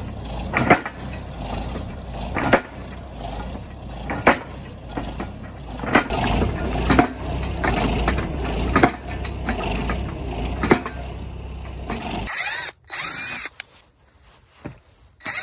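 Hydraulic post driver on a loader boom hammering a round wooden fence post into the ground, a sharp knock every couple of seconds over the steady rumble of the machine's engine. About 12 seconds in this gives way to a cordless drill whirring in short bursts as it drives screws into a wooden rail.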